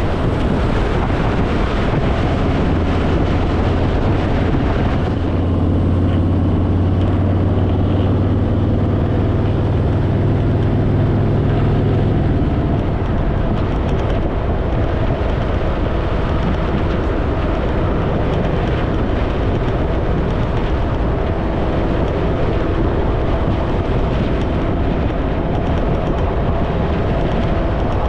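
Harley-Davidson Fat Boy's V-twin engine running at a steady road speed, with wind rushing over the microphone. The engine note stands out most from about five to twelve seconds in, then sinks into the steady wind noise.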